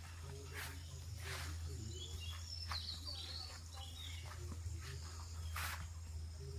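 Small birds chirping now and then, in short high calls clustered a couple of seconds in, over a steady low hum. There are a few brief rustles.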